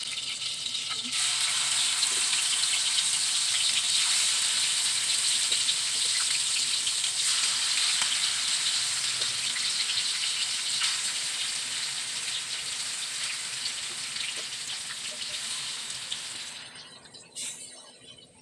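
Marinated chicken pieces sizzling as they fry in hot oil and butter in a pan. The sizzle jumps up about a second in, holds steady, then fades and cuts off near the end.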